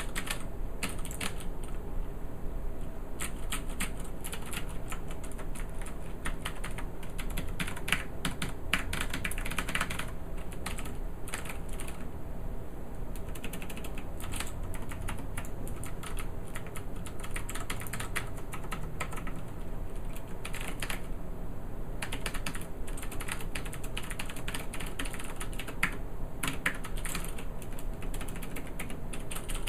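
Xarmor U9 Plus mechanical keyboard with Cherry MX Blue switches being typed on, irregular runs of clicky keystrokes with a short pause about two-thirds of the way through.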